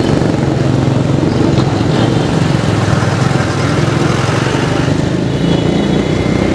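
A vehicle's engine running steadily at road speed, with road and traffic noise around it.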